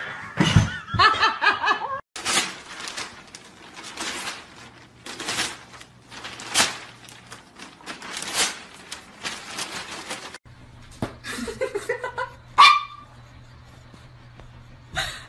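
People laughing in short bursts.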